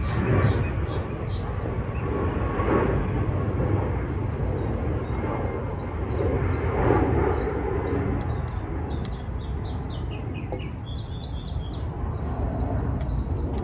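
Small birds singing: quick high chirps repeated in runs, one run stepping down in pitch about two-thirds of the way through. Under them is a steady low rumble of background noise.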